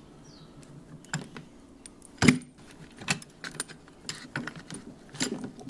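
Metal clinks and knocks as coil spring compressors are unhooked from the coil spring of a reassembled MacPherson strut, with one sharper knock a little over two seconds in.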